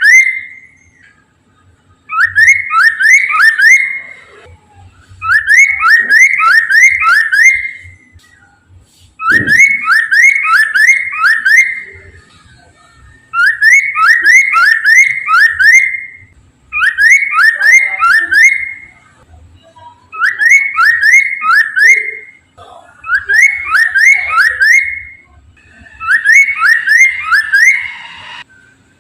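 Poksay mandarin laughingthrush singing loud, repeated phrases of four to six quick upslurred whistles, each phrase about two seconds long with short pauses between. A single low thump about nine seconds in.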